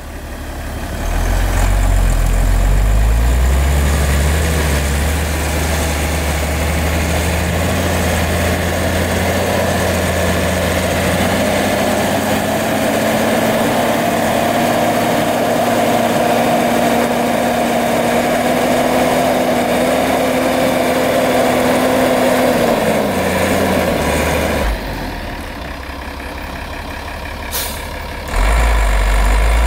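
Mercedes-Benz Unimog's diesel engine working hard as the truck drives through deep snow. Its note climbs slowly in pitch for most of the time, drops away late on, and comes back loud again near the end after a quieter stretch.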